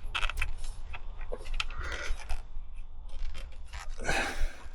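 Small irregular clicks, rattles and scrapes of hands working motorcycle wiring connectors and cables in a cramped space, with a louder rustle about four seconds in.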